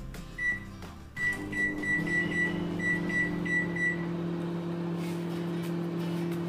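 LG microwave oven being set and started: one keypad beep, then a run of short high beeps as the time is keyed in. The oven then comes on with a steady low hum.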